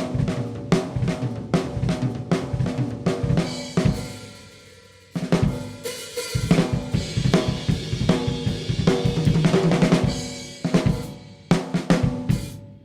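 Close-miked Pearl Vision birch drum kit played with snare, bass drum, hi-hat and cymbals in busy grooves and fills, the drums ringing. About four seconds in the playing stops and rings down for a second, then starts again with a loud hit and runs on to the end.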